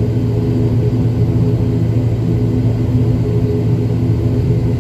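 Cabin-side drone of an ATR 72 turboprop's engine and propeller running steadily, a loud even hum built of several low steady tones, heard through the cabin window.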